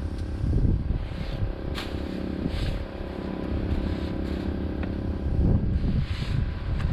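An engine running steadily, with a few light knocks or clicks over it.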